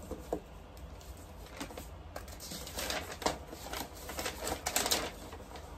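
Paper being handled close by: rustling and small clicks as a quilt-pattern sheet is shuffled and its pages are turned. It is sparse at first and busier from about two seconds in.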